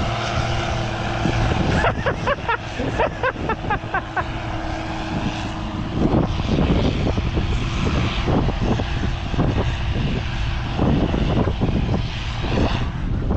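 Tractor diesel engine running hard under load as the tractor pulls away down the track, with wind buffeting the microphone. The steady engine note fades about halfway through, leaving mostly gusty wind.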